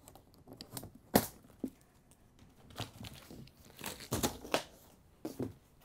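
Plastic packing strap on a cardboard bike box cut with snips, with a sharp snap about a second in, followed by the cardboard flaps being pulled open with scraping and crackling.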